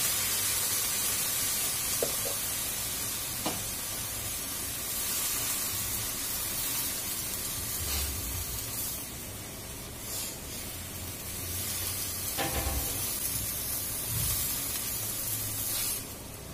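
Stir-fry of broccoli, carrot and meat sizzling in a frying pan as soy sauce goes in, the sizzle strongest at first and easing off. A spatula stirs the pan, with a few light knocks against it.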